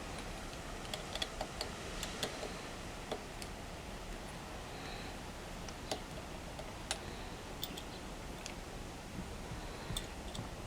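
Scattered light clicks and taps of small parts and tools being handled during work on an outboard motor, a few at a time at irregular spacing, over a steady low background hum.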